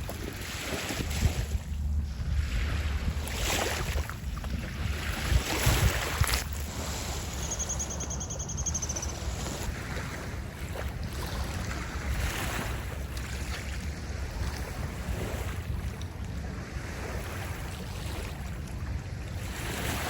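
Wind buffeting the microphone over surf washing on the shore: a steady low rumble with a few louder gusts in the first six seconds.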